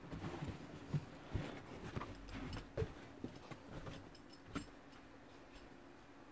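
Irregular knocks, clicks and rustling of a person rummaging among gear and moving about a small room, dying away after about four and a half seconds to a faint steady hum.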